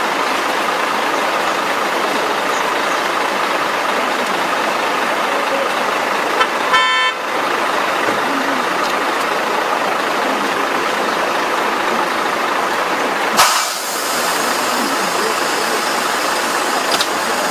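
A short car horn toot about halfway through, over steady background noise, followed a few seconds later by one sharp knock.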